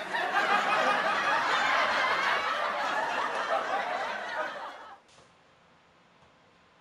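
Several people laughing and giggling together for about five seconds, then it cuts off suddenly.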